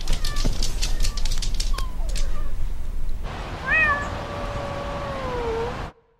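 Rapid footfalls and knocks of several people running across a wooden floor, then one long drawn-out cat meow that rises, holds steady and falls away before cutting off.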